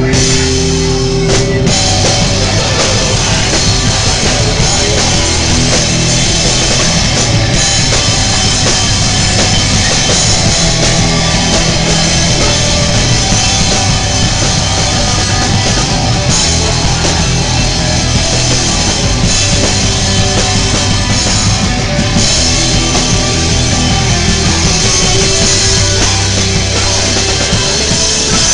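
Hardcore punk band playing live, loud and continuous, with a pounding drum kit under the full band. A held note at the start stops about a second and a half in.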